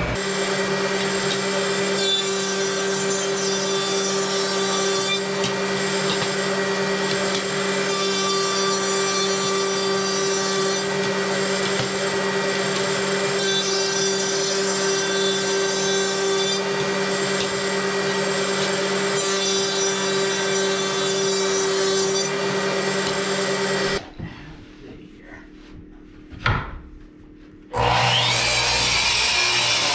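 Spindle shaper motor running with a steady hum while oak flooring boards are fed through the cutter four times, each pass a few seconds of loud cutting as the groove is milled. It stops about three quarters of the way in; after a quieter stretch with a single knock, a miter saw starts up and cuts a board end near the end.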